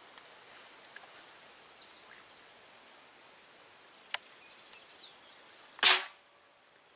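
A single rifle shot about six seconds in, sudden and loud with a short decay, fired from the hunter's rifle at a wild cuy. A smaller sharp click comes shortly before it, over faint outdoor background.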